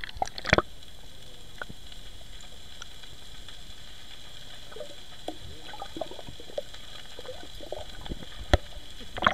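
River water heard from under the surface through a submerged action camera. There are a couple of splashy knocks as it goes under, then a steady muffled hiss with faint gurgles and small clicks, and a sharp knock near the end.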